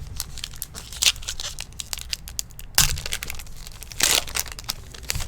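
Trading-card pack wrapper crinkling and tearing as it is ripped open, in several crackly bursts, the loudest about three and four seconds in.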